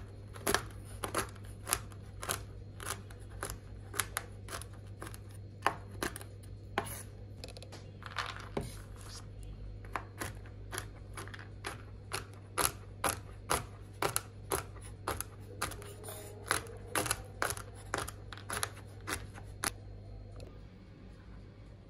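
A run of sharp clicks or taps, about two a second, over a low steady hum; the clicks stop near the end.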